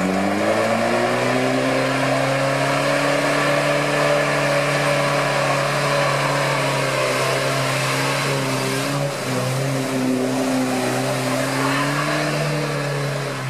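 UAZ off-roader's engine revving up and holding at high revs under load as it pushes through water and mud, with a brief dip in revs about nine seconds in.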